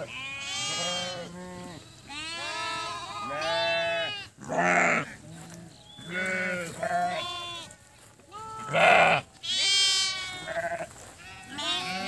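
A flock of sheep and lambs bleating, many calls overlapping one after another, some high-pitched and some lower. Two louder, harsh sounds stand out, about five and nine seconds in.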